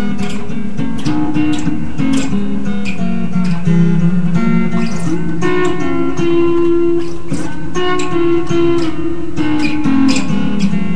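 Guitar music at a steady level, chords strummed and picked with sustained notes ringing under them.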